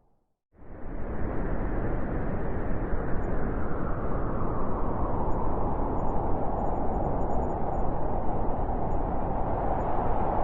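Blizzard wind blowing as a steady, deep rushing noise. It drops to silence for about half a second at the start, then swells back in quickly and holds steady.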